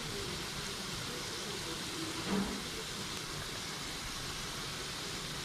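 Steady rumbling background noise, with a short faint tone about two seconds in.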